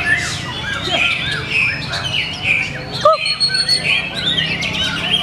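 White-rumped shama (murai batu) singing, a busy run of quick chirps and short whistled phrases overlapping one another.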